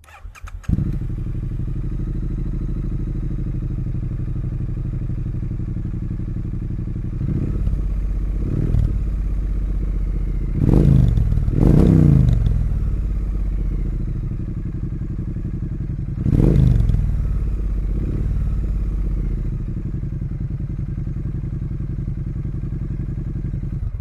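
2017 Triumph Street Twin's 900 cc parallel-twin engine starting, settling into a steady idle, and revved in a series of short throttle blips, the hardest about eleven and twelve seconds in and again about sixteen seconds in.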